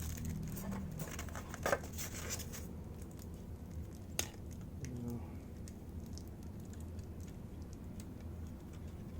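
Handling noise of a model being picked up and turned over: rustling and scratching in the first couple of seconds, then a few sharp light clicks, over a steady low hum.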